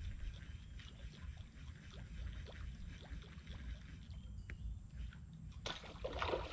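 Water splashing and trickling over a low rumble, with small ticks throughout and a louder splash starting near the end.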